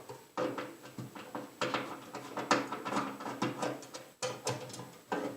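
Irregular metallic clicks and clinks as screws are taken out of the Pit Boss 700FB pellet grill's sheet-metal body, with tool and screws knocking against the metal.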